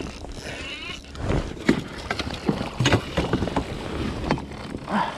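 Irregular knocks and handling clatter on an inflatable fishing raft's metal frame, over a low steady rumble.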